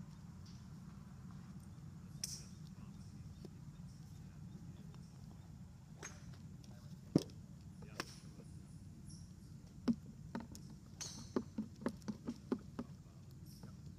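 Scattered sharp clicks and taps over a steady low hum, with a quick run of about six clicks late on.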